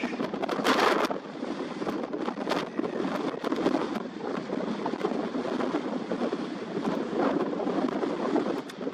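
Strong wind buffeting the camera's built-in microphone, a rough rumbling noise that swells and eases with the gusts and has a few sharp hits.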